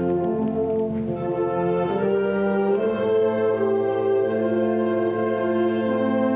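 A concert wind band playing slow, sustained chords, brass and clarinets together, the harmony shifting every second or so.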